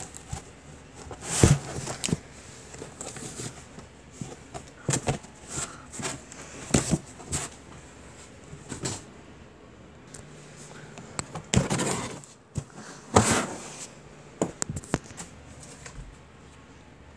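Irregular rustles, bumps and knocks of handling noise, made as the recording device is moved against and rubbed over plush toys and fabric. The loudest bumps come about a second and a half in and again about thirteen seconds in.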